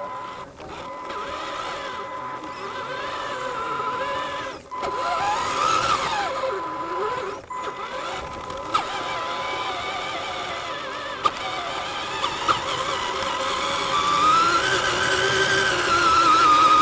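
Electric motor and drivetrain of a radio-controlled truck whining, the pitch rising and falling with the throttle and growing louder near the end. There are a couple of brief dropouts and a few sharp clicks.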